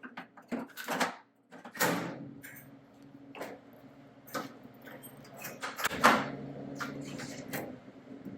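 Irregular clicks and knocks of a tailgate lock being handled and fitted into a Ford Ranger's tailgate handle, with the loudest knock about six seconds in, over a steady low hum.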